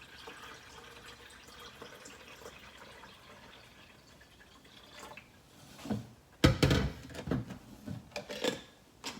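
Water running steadily for about five seconds, then a series of loud knocks and clatters, the loudest about six and a half seconds in.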